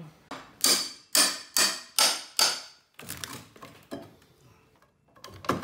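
A hammer striking a steel pry bar driven under a wall's bottom plate, six hard ringing blows about two a second, then a few fainter knocks as the plate works loose.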